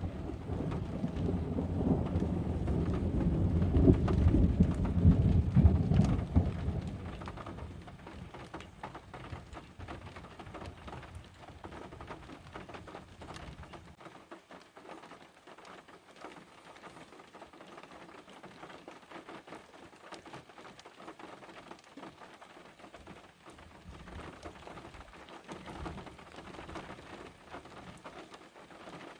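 Thunder rumbling for the first several seconds and dying away, then steady rain falling, with many small drop ticks.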